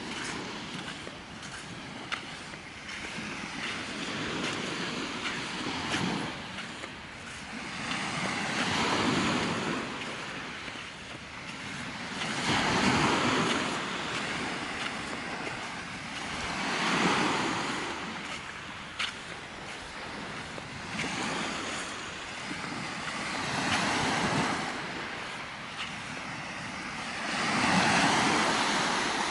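Small sea waves breaking and washing up a beach, each swelling and fading every four seconds or so.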